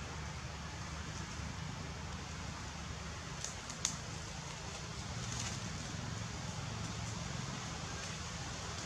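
Steady outdoor background noise: a low rumble with a faint hiss over it, and two short faint ticks about three and a half to four seconds in.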